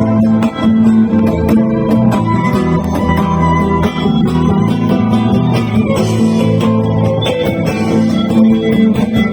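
Acoustic band playing an instrumental passage: strummed guitars over bass guitar, with cajon beats.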